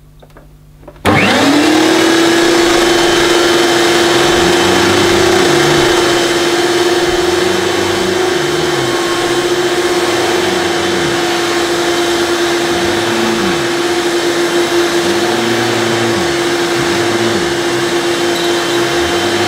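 Hoover Celebrity canister vacuum cleaner switched on at high speed about a second in, its motor whining up to speed and then running steadily while the power nozzle is pushed to and fro over carpet, a lower tone dipping and rising every second or two with the strokes. The power nozzle's brush roll is turning on a belt that the owner thinks has stretched and needs replacing.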